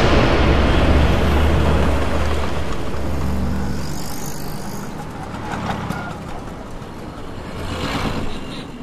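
Car engine and road noise heard from inside the car as it drives off: a steady low rumble that fades away over the second half, with a short rush of noise near the end.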